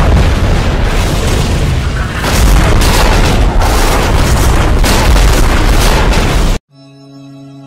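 Explosion sound effects: a deep boom that carries on and a second boom a little over two seconds in. The sound cuts off suddenly near the end and soft, sustained music begins.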